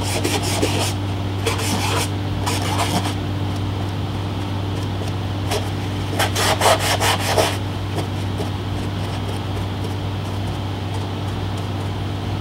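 Dry paper towel scrubbing and dabbing over a painted model concrete surface to soak up a wash. It comes as short, scratchy rubbing strokes in several bursts, the longest and loudest about halfway through.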